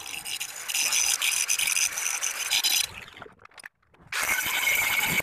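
Angle grinder grinding a steel plate for a brake caliper bracket, a harsh steady metal-grinding noise that breaks off about three seconds in and starts again about a second later.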